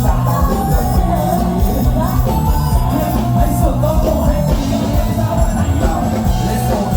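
Loud amplified live band music with a steady beat, and a voice singing and calling out over it.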